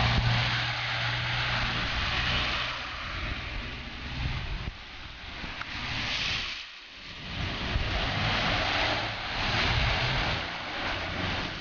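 Cars driving through standing flood water on the street, tyres hissing and throwing up spray in several passing swells. A low engine hum is heard in the first few seconds.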